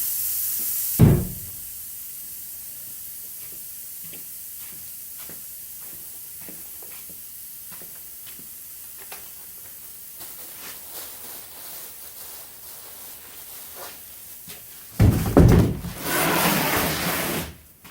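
A loud thump about a second in as a steady hiss cuts off, then scattered light clicks and knocks of things being handled in the back of a car, and near the end a louder clatter of knocks with a rush of hiss.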